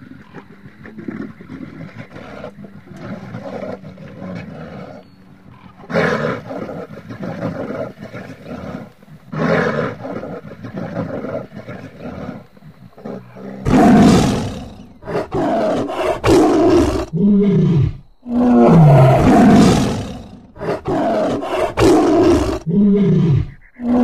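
Tian Shan brown bear calling: rough, low grunts and growls through the first half, then a run of much louder roars, several falling in pitch.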